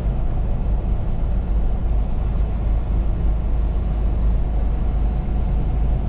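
Steady low rumble of a truck's engine and road noise heard inside the cab while driving.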